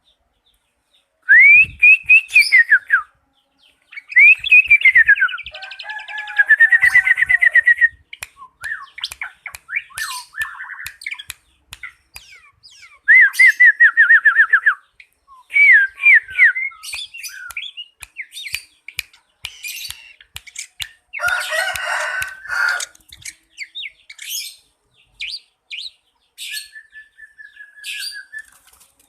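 White-rumped shama singing: loud whistled phrases that rise and fall and fast trills, separated by sharp clicks. A harsh rasping burst comes past the middle, and a long steady whistle near the end.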